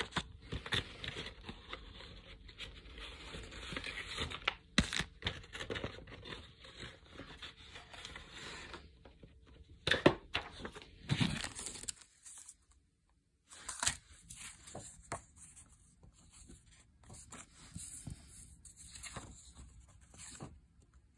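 Paper and cardboard packaging being handled: a dense tearing-like rustle at first, sharp knocks and clicks about five, ten and eleven seconds in, then a brief hush and softer scattered rustling of paper sheets.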